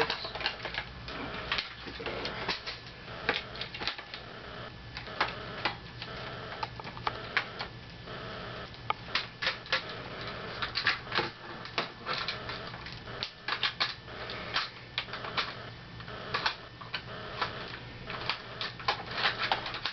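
Irregular clicks, taps and clatters of the plastic parts of an ECHO1 G36C airsoft gun being handled and pushed together while the battery and its cover are fitted.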